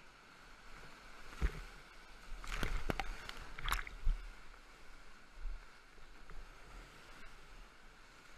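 High-water whitewater (about 1500 cfs) rushing around a kayak, with a cluster of loud splashes and knocks from about one and a half to four seconds in as the boat crashes through the waves.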